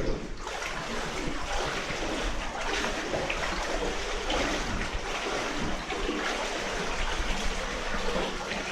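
Feet wading through shallow muddy water, with continuous sloshing and splashing.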